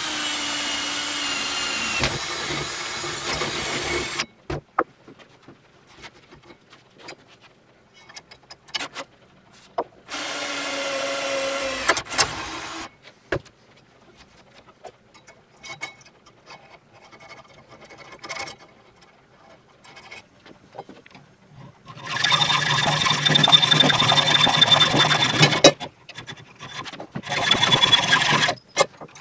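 Cordless drill running and boring into steel in several bursts: about four seconds at the start, a shorter run near the middle, then two louder runs near the end. Between runs there are scattered clicks and knocks of metal being handled.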